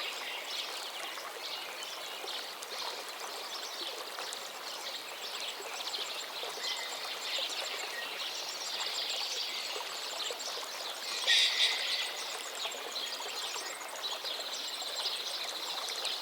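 Forest stream flowing steadily, with songbirds singing over it; a louder burst of birdsong comes about eleven seconds in.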